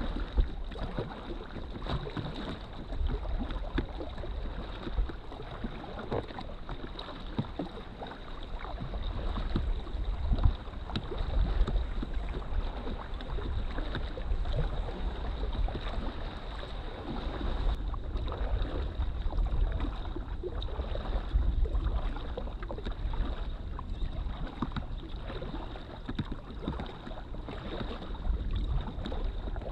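Water lapping and splashing against an inflatable drop-stitch kayak as it is paddled across a lake, with wind buffeting the microphone in a low rumble.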